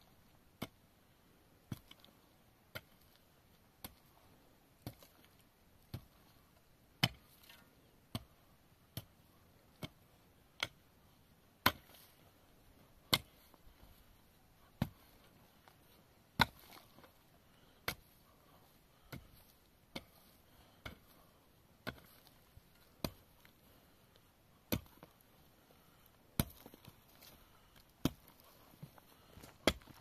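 Repeated sharp single strikes, about one a second and uneven in loudness, the loudest about twelve, sixteen and twenty-six seconds in.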